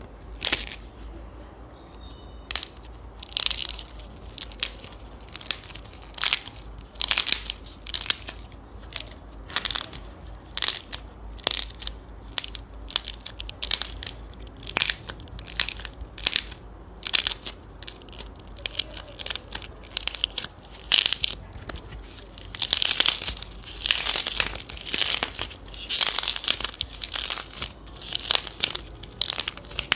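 Slime being pressed and squeezed by hand, crackling and crunching in short bursts about one or two times a second.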